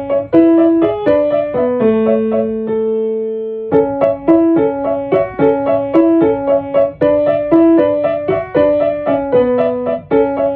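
Solo piano music playing a repeating broken-chord figure. It pauses on a held chord about two seconds in, then the figure starts again.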